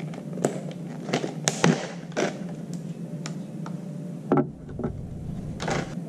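A string of plastic clicks and crinkles as a clear plastic clamshell pack of laptop memory modules is handled and opened, with a sharper click a little past four seconds.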